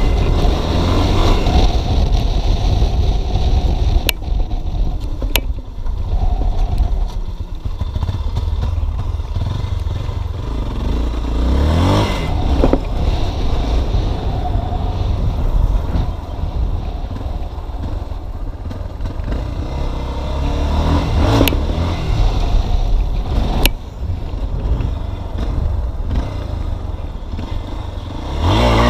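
Motorcycle engine running under throttle during wheelies, its revs rising and falling several times, under heavy wind rumble on the microphone, with a few sharp ticks.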